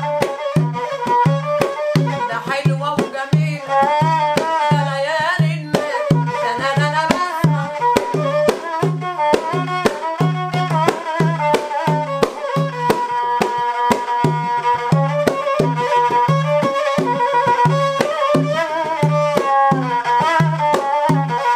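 Egyptian rababa spike fiddle bowing a wavering folk melody over a doff frame drum beating a steady, quick rhythm.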